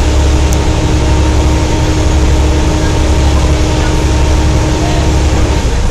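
Wright Eclipse Gemini double-decker bus running with a heavy low engine rumble and a loud, steady whine, the 'hoover' sound. The whine steps up in pitch near the end.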